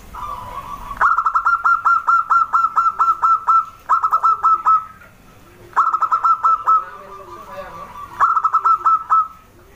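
Zebra dove (perkutut) calling: quick runs of short staccato coos, about six or seven notes a second, each note dropping in pitch, in four bursts with short pauses between.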